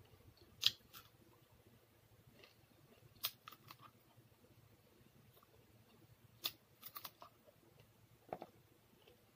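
Close-miked eating by hand: scattered sharp mouth clicks and smacks while chewing, in small clusters, with one duller tap near the end.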